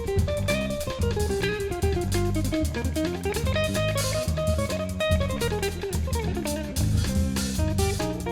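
A live instrumental band of guitar, electric bass, drum kit and percussion playing choro-style music. A melody line climbs, holds a long note in the middle and falls back, over a steady bass and drum groove.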